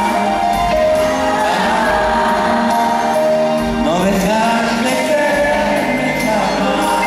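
Male singer singing live into a handheld microphone over band accompaniment, holding long notes, with a rising slide in pitch about four seconds in.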